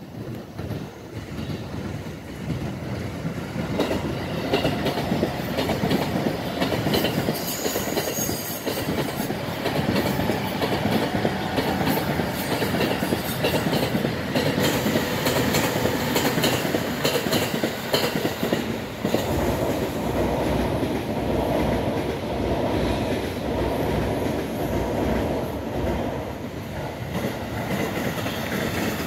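Electric suburban train passing at speed: the cars rumble and the wheels clatter over the rail joints, building up over the first few seconds and then running on loudly.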